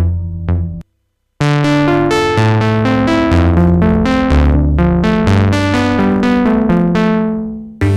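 UDO Audio DMNO hybrid polyphonic synthesizer playing a keyboard patch: overlapping bass notes and chords with sharp attacks that decay away. The previous sound cuts off under a second in, and after a short silence the new patch starts, fading out near the end.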